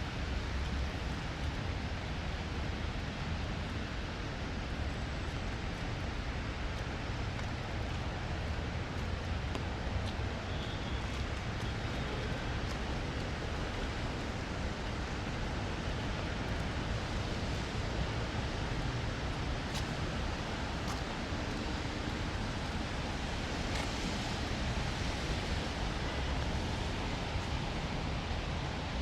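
Steady rain falling, an even hiss with a low rumble underneath and a few faint sharp ticks of drops.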